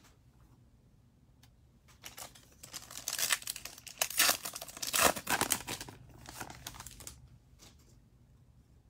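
A foil trading-card pack being torn open by hand and its wrapper crinkled. The tearing and crinkling start about two seconds in, are loudest in the middle, and die away a second or two before the end.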